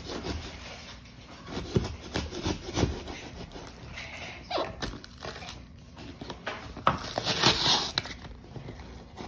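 Fingers scraping, tapping and picking at a cardboard shipping box and its packing tape in irregular short scratches, with a longer tearing sound about seven seconds in.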